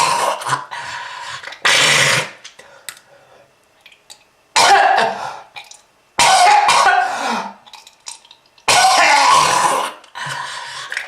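A person's harsh, hacking smoker's cough in a string of loud fits, one every two seconds or so.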